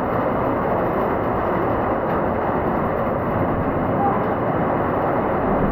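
Heavy rain falling steadily, a dense, even hiss and rumble, as a hailstorm passes over into plain rain.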